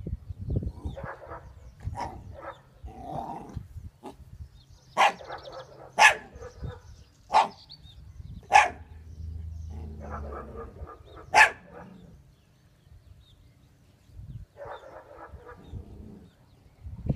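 Small puppy barking: five sharp barks spread over several seconds in the middle, the last after a short pause, with softer yaps before them.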